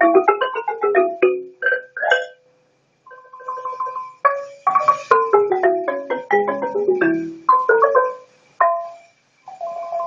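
A boat-shaped wooden trough xylophone of the Southeast Asian ranat type, played with mallets in quick runs of struck notes. The playing breaks off briefly about two and a half seconds in and again near nine seconds, with fast falling runs in the middle.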